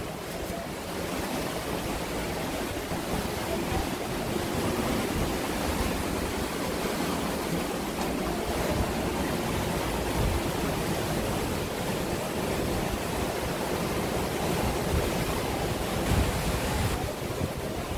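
Sea surf washing over the rocks at the foot of the cliffs: a steady rushing noise without a break.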